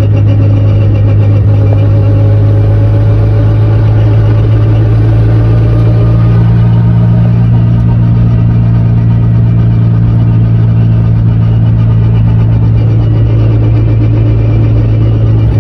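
Chevrolet Chevette's rear differential making a loud, steady drone while the car is driven at about 50–60 km/h. It is a ring-and-pinion noise that has come back with a newly fitted ring and pinion, which the owner thinks was probably assembled wrong.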